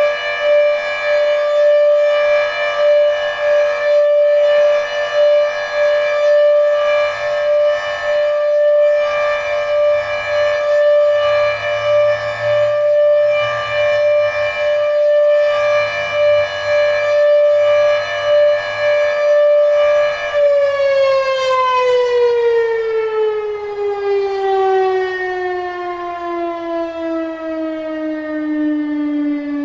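Federal Signal Thunderbeam RSH-10B warning siren, its reflector faulty, sounding a steady Alert tone that swells and fades every second or two. About two-thirds of the way in, the pitch begins falling steadily as the siren winds down at the end of the Alert.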